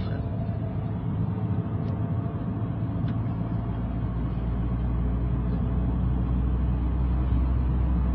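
A steady, low engine rumble that slowly grows louder.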